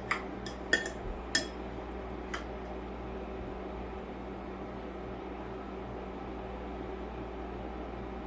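A few light clinks of utensils on dishes in the first two seconds, then only a steady mechanical hum like a kitchen fan or appliance running.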